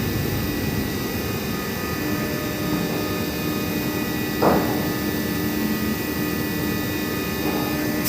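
Oil drilling rig machinery running with a steady drone and a few constant tones, one of which comes in about two seconds in. A single brief knock sounds about four and a half seconds in.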